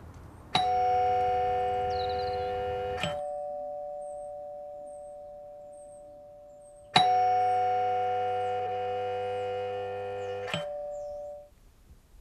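Two-tone door chime rung twice: a high note then a lower note about half a second in, and the same ding-dong again about seven seconds in, each note ringing on and fading slowly.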